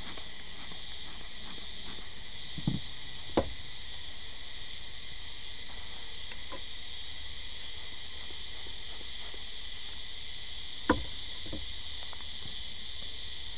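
Steady high-pitched chorus of insects such as crickets or cicadas. Knocks break through it twice, a pair about three seconds in and another pair near eleven seconds, the sharpest of them near eleven seconds.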